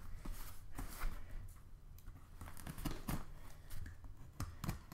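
Packing tape on a cardboard shipping box being slit open with a sharp tool: faint, irregular scraping and tearing with a few light clicks.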